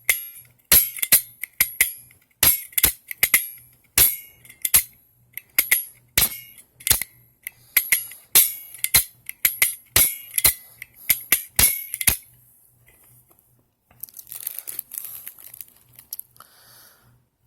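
Klom manual lock pick gun being worked by hand, its spring-loaded hammer snapping with sharp clicks two or three times a second for about twelve seconds. Then a few seconds of fainter scratchy handling noise.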